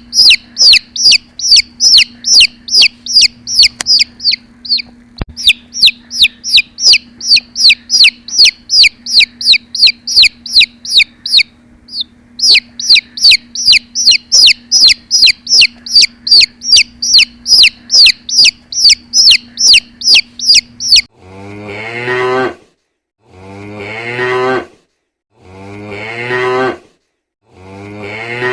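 Rapid high chirps repeating evenly, about three a second, with two short breaks. About three-quarters of the way in they give way to a cow mooing, one moo about every two seconds.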